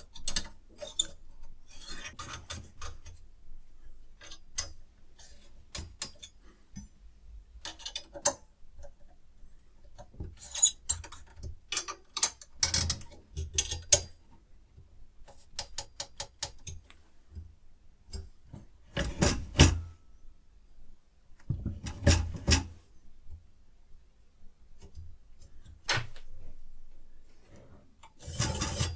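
Parts of a knife sharpening system being handled and adjusted: irregular clicks and clatter, with short rubbing and scraping sounds, the loudest of them in the second half.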